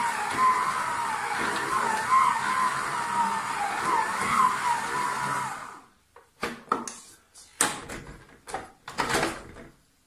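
Electric stand mixer kneading pizza dough with its dough hook: a steady motor whine that wavers with the load, cut off suddenly about six seconds in when it is switched off. A few knocks and clicks follow as the mixer head is raised and the dough is handled.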